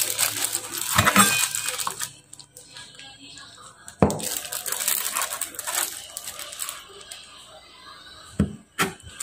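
Plastic wrapping crinkling around a block of tempeh as a large knife cuts through it, with sharp knocks of the blade on a plastic cutting board about a second in, around four seconds in, and twice near the end.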